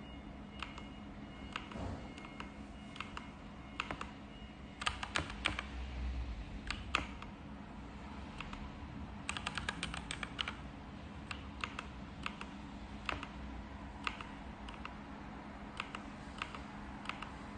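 Keys being typed on a LEAVEN H96 mechanical keyboard: separate clicking keystrokes with two quick runs of typing, one about five seconds in and another a few seconds later.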